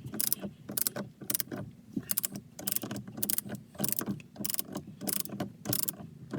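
A socket ratchet clicking in short runs, about three clicks a second, as the 18 mm steering-wheel centre bolt is wound down for final tightening toward 43 N·m.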